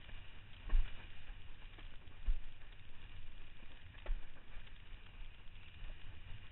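Windsurf board moving through choppy water: wind rumbling on the microphone over a steady hiss of water, with a few heavy, irregular thumps as the board slaps the chop, about one, two and four seconds in.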